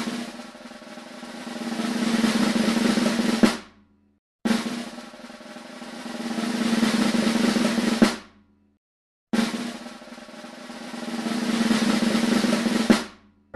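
Drum roll played three times, each swelling louder over about three seconds and ending on a sharp final hit, with a short silence between rolls.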